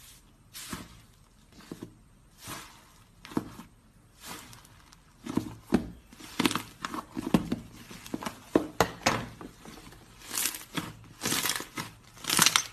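Slime being squeezed and poked by hand, giving irregular crinkly crackles and pops, sparse at first and denser and louder from about halfway through.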